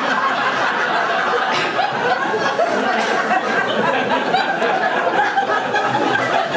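Audience laughing together at a punchline, a dense crowd of laughter throughout.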